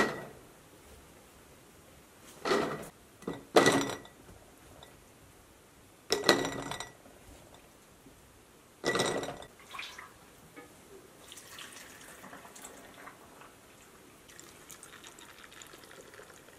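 Cubed potatoes going through a plastic funnel into glass quart canning jars, with five or six sharp clunks and clinks against the glass in the first ten seconds. Hot water is then poured into the jars in a faint, steady trickle over the last few seconds.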